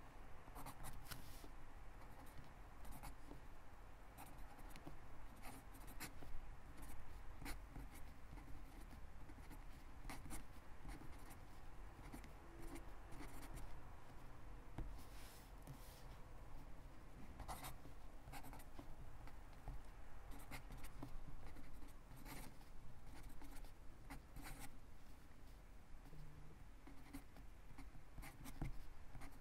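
Quiet scratching of a Sharpie Pen's fine felt tip writing cursive on lined notebook paper, a steady run of short strokes with brief ticks as the tip lifts and touches down.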